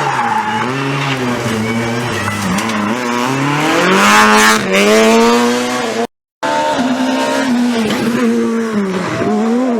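Rally car engine running hard and revving, its pitch rising and falling through gear changes and climbing to the loudest, highest run about four to five seconds in. It cuts off abruptly just after six seconds, then the engine is heard again.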